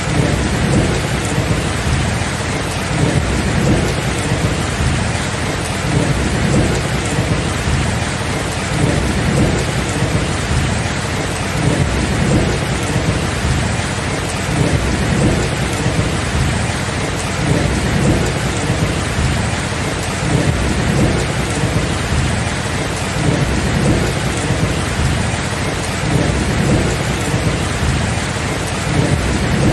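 Steady rain with a low rumble of thunder underneath that rises and falls but never cracks sharply.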